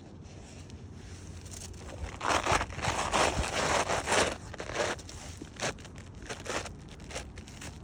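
Gritty scraping and crunching against asphalt roof shingles: a dense run of scrapes from about two to four and a half seconds in, then a few shorter scrapes.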